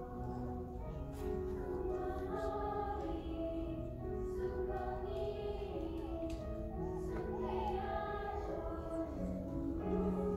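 Youth choir singing in parts with grand piano accompaniment, holding long notes with some gliding phrases.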